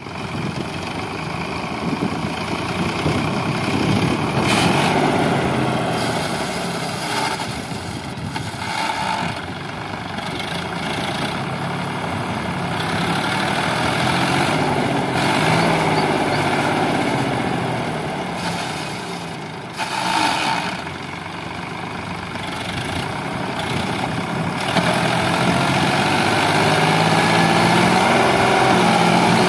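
Sonalika DI 745 tractor's diesel engine running under heavy load while dragging a tine cultivator through dry soil. The load is enough to lift the front wheels off the ground. Its revs rise and fall, and it gets louder near the end.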